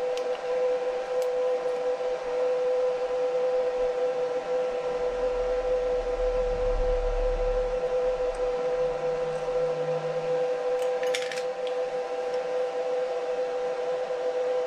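Milling machine running with a steady whine. A few light metal clicks come from parts and tools being handled: near the start, and a short cluster about eleven seconds in.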